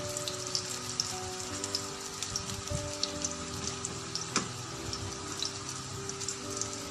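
Pumpkin fritters shallow-frying in hot oil, a steady crackling sizzle with many small pops, and one sharp click about four seconds in. Soft background music plays underneath.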